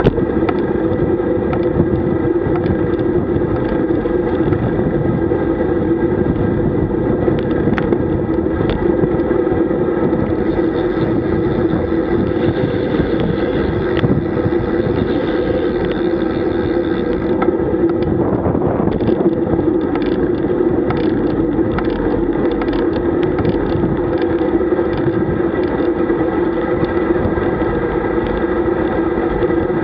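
Steady wind and road noise on a road bike's action camera riding at speed: an even drone with a constant hum, and light ticks and knocks in the second half.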